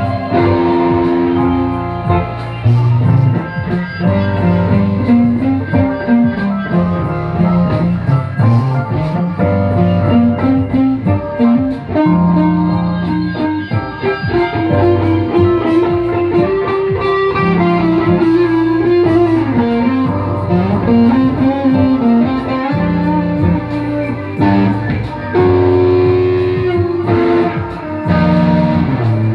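Music led by plucked guitar over a moving bass line.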